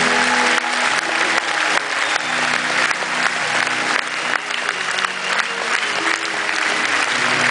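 Concert audience applauding, with the band playing soft sustained chords underneath.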